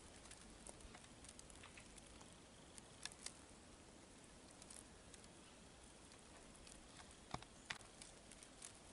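Near silence: faint outdoor hush with a few scattered light ticks, two close together about three seconds in and two more near the end.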